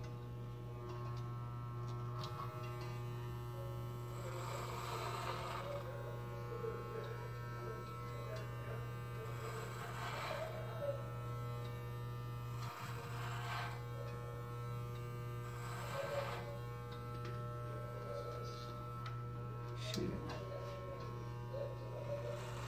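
Cordless electric hair clippers running with a steady buzzing hum, with a rasping burst every few seconds as the blades cut through a long, thick beard.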